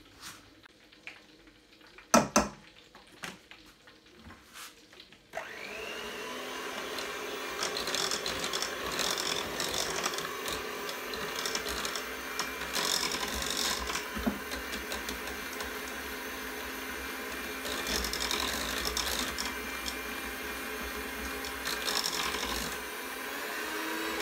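A few sharp clicks, then an electric hand mixer starts suddenly about five seconds in and runs steadily, its beaters whirring and scraping through thin cookie batter in a steel pot. Its pitch rises slightly near the end.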